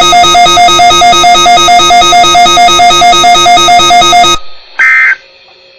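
Garbled electronic tones from a failing weather radio broadcast, looping in a loud, fixed-pitch buzz that pulses about four times a second. The buzz cuts off abruptly a little over four seconds in, and a short electronic beep follows.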